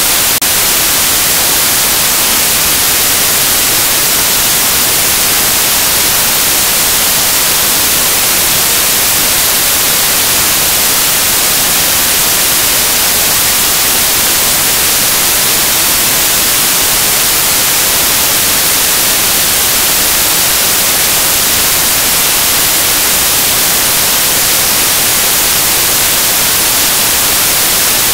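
Loud, steady hiss of white-noise static, brightest in the high end and unchanging throughout. With the picture stuck on one frame, it is the sign of a dropped or corrupted video signal.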